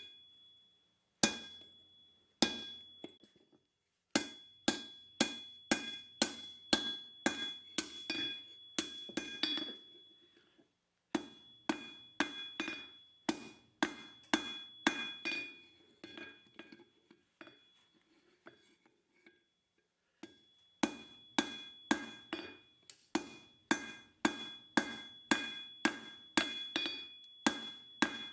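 Hammer blows on steel over an anvil, in runs of about two strikes a second, each ringing with a clear high metallic tone; the hammering stops briefly twice.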